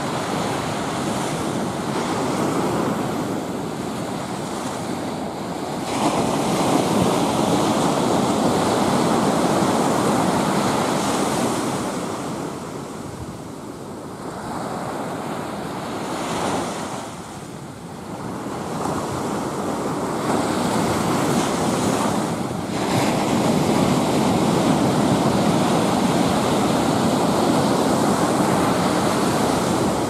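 Ocean surf breaking and washing up on a sandy beach: a continuous rushing hiss that swells and fades as waves come in, quieter for a few seconds around the middle and loudest near the start and the end.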